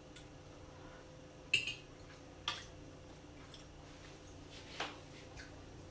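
Kitchenware being handled: a few light clicks and knocks, the sharpest about one and a half seconds in, over a faint steady hum.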